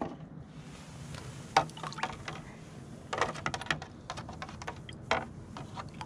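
Irregular small splashes and light clicks of a plastic car handle being moved about in a tray of water, rinsed after a sodium persulfate bath has stripped its chrome plating.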